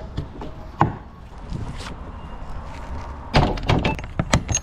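Rear door of a box trailer being pushed shut, then its steel locking bar handle worked closed. There is a single knock a little under a second in, then a quick run of metallic clanks and clunks from about three and a half seconds in as the bar latches.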